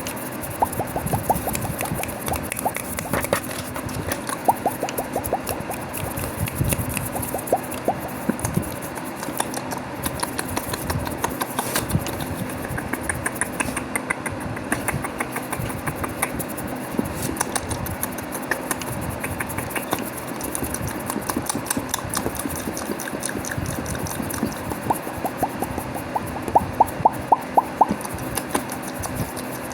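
Fast, close-miked ASMR mouth sounds and hand sounds: a dense stream of small clicks and smacks with skin scratching, broken by quick runs of sharper clicks, the loudest a run of about five a second near the end.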